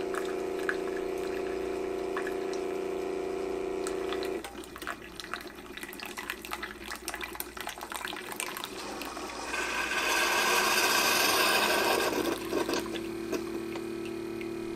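Keurig K-Duo Plus single-serve brewer running an 8-ounce brew: a steady machine hum for the first four seconds, then coffee streaming and spattering into a ceramic mug. About ten seconds in a louder hissing sputter comes as the stream ends, followed by a steady lower hum.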